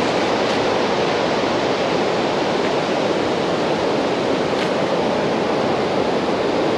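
Steady, unbroken rush of water pouring over a small waterfall, heard close up: much softer than a big falls.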